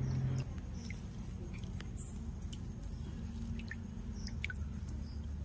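A hand swishing and rubbing cut pieces of sea fish in a steel bowl of water while washing them, with soft squelches, small splashes and drips.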